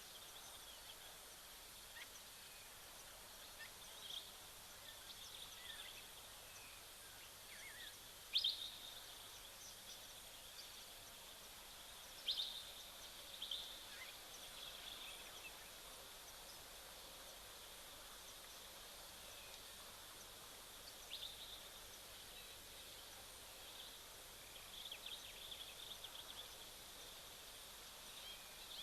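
Faint outdoor ambience with a steady hiss and scattered short, high bird calls. The loudest calls come about eight seconds in and again around twelve seconds, with more small clusters later.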